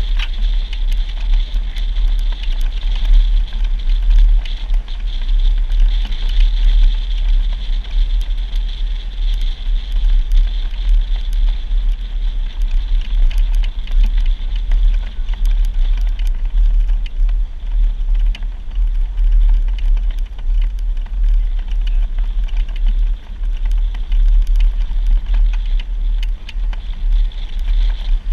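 Jeep driving on a rough off-road trail: a steady low rumble with many small rattles and clicks.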